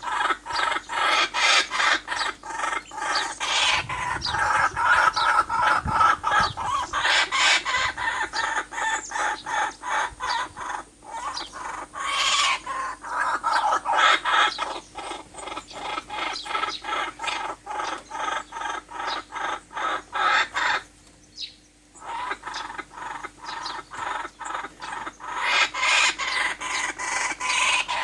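Many birds calling at once in a dense chorus of rapid, repeated calls, with a brief lull about three-quarters of the way through.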